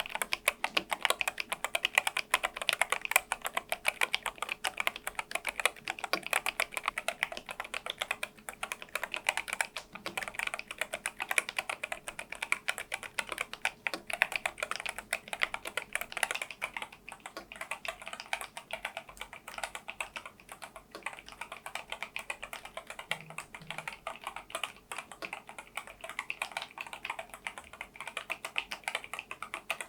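Continuous fast typing on a NuPhy Air96 low-profile wireless keyboard with Gateron LP 2.0 red linear switches, a dense run of keystroke clicks that stops abruptly at the end.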